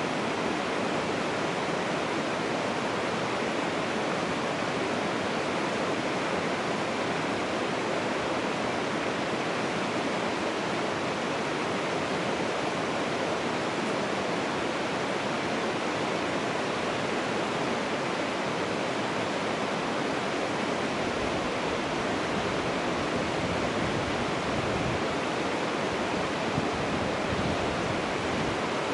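Steady rush of flowing water, even and unbroken, with no other sound standing out.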